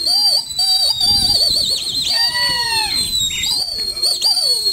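Loud, long high whistling from the pigeon keepers working their circling flock, held notes that warble and break off several times, with lower sliding whistles or calls beneath.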